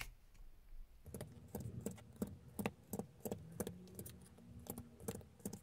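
A hand piercing tool punching holes through a paper template and patterned card into a foam mat. It makes a run of small sharp clicks, about three or four a second, starting about a second in.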